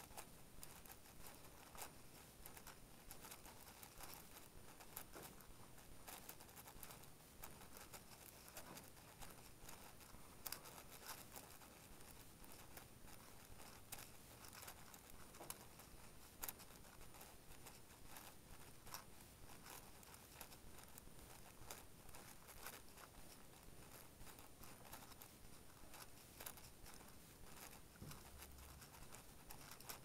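Faint, rapid clicking and clacking of a Hays7 7x7 speedcube as its layers are turned quickly by hand, with a few louder clacks scattered through.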